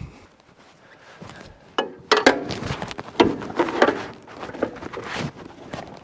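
Large adjustable wrench prying and scraping against the engine mount plate of a portable band sawmill, levering the engine up to tension the drive belt. Irregular scrapes and knocks begin about two seconds in.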